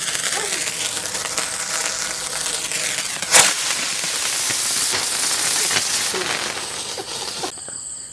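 Vanitha drone firework burning with a steady spraying hiss, a single sharp crack about three and a half seconds in, then a brighter hiss. The hiss cuts off abruptly shortly before the end.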